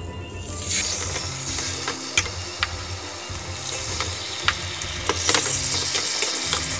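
Barbecue-marinated pork chops sizzling as they are laid one by one into a hot, oiled stainless-steel frying pan. The sizzle starts under a second in and grows stronger as more chops go in, with sharp clicks of a metal fork against the pan.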